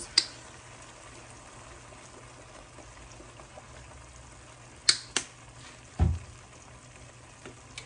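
A pot of beef tips in gravy simmering faintly under a low steady hum as Worcestershire sauce is poured in from the bottle. Two sharp clicks come about five seconds in, and a dull thump a second later.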